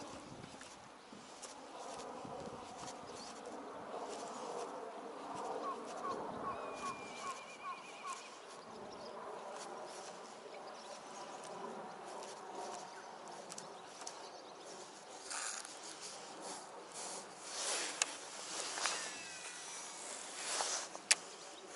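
Baitcasting reel (Shimano Calcutta Conquest DC 200) being wound in with a steady buzzing hum. Near the end come the rushing swish of a cast and a whine falling in pitch, typical of the reel's DC brake as the spool slows, then a sharp click.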